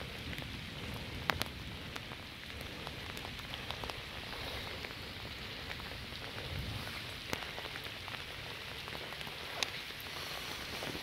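Steady rain falling, with a few sharp taps of drops landing close by, three of them standing out over the patter.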